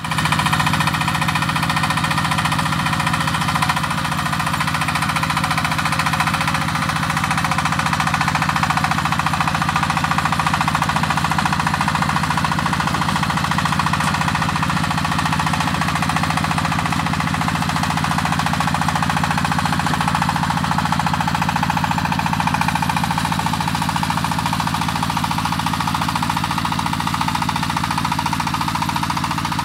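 Single-cylinder diesel engine of a 12–22 hp walking tractor (power tiller) running steadily with a fast, even beat, under load while it drives a rotary tiller through the soil.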